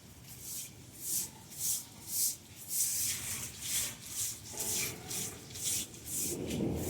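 Broom sweeping leaves on pavement in quick, regular strokes, about two swishes a second. A low rumble of thunder builds near the end.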